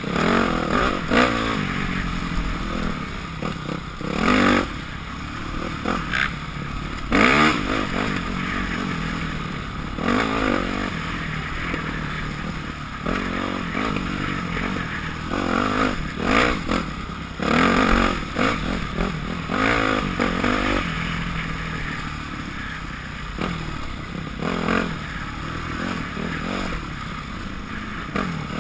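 2006 Yamaha YZ250F's 250 cc four-stroke single-cylinder engine running along a dirt trail, revving up in short louder bursts every few seconds as the throttle is opened and closed, with the bike rattling over the rough ground.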